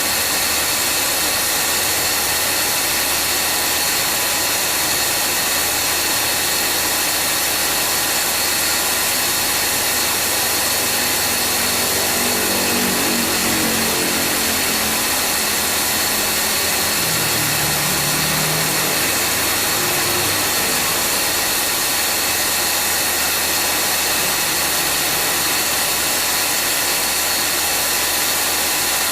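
Engine bay of a 2013 Subaru Forester 2.0T idling with the air-conditioning compressor running, giving a loud, steady abnormal noise with several steady tones: the compressor is heavily worn.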